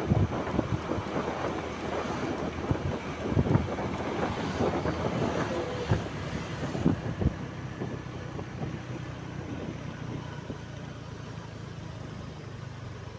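A vehicle running with wind noise on the microphone. Irregular knocks and thumps come through the first half, then it settles into a steadier low hum.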